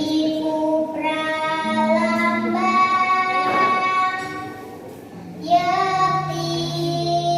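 A child singing a Javanese tembang solo, holding long notes that slide slowly between pitches. The voice fades about four seconds in and comes back a second later.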